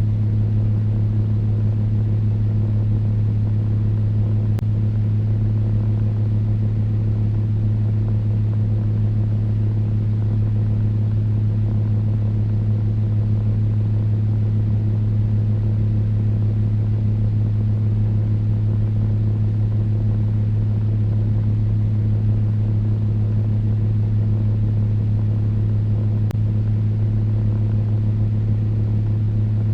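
Electric fan running steadily: a constant low motor hum over a faint airy hiss.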